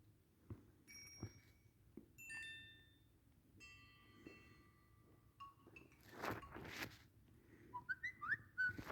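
Samsung Galaxy Pocket Neo notification tones played one after another through the phone's small speaker: several short chimes and bell-like notes, one a held chord, and near the end a quick rising whistle-like figure. Soft clicks fall between the tones, and a brief scuffing noise comes about six seconds in.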